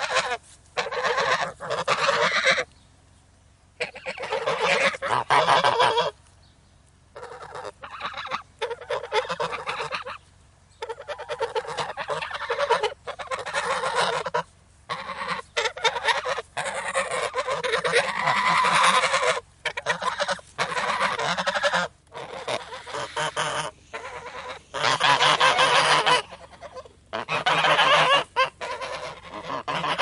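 Angry geese honking in repeated bursts of one to two seconds, separated by short pauses.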